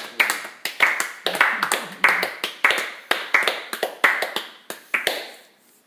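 Nylon-string classical guitar strummed hard in a quick, even rhythm, with a heavy stroke about every half second and lighter strokes between. The strumming stops with a final chord about five seconds in that rings and fades.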